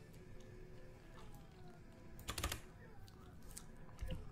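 Computer keyboard being typed on: a quick run of key clicks about two and a half seconds in, a few single clicks after it, and a soft thump near the end.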